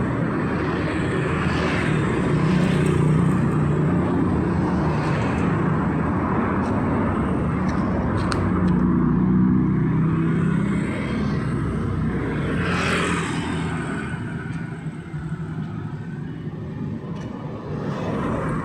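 Street traffic passing: engines running and tyre noise from vehicles going by, swelling and fading in turn, one passing loudest about two-thirds of the way through.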